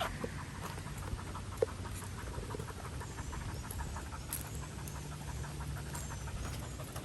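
A dog panting hard in a fast, even rhythm, the sign of a dog tired out from a long walk. A short sharp tick sounds once about a second and a half in.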